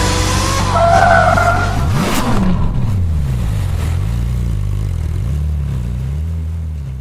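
Car engine revving, its pitch rising and falling several times, with a car passing about two seconds in. A brief high-pitched squeal sounds about a second in, and the sound fades out near the end.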